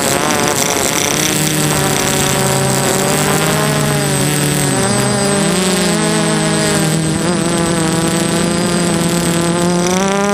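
Brushless motors and propellers of a DJI F330 quadcopter whining in flight, heard from the onboard camera. Several tones drift slowly up and down in pitch over a steady rushing noise.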